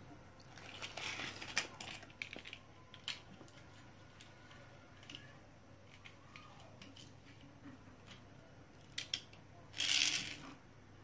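Scattered small clicks and taps, then, about ten seconds in, a brief scraping rush as a toy race car is pushed across a tile floor.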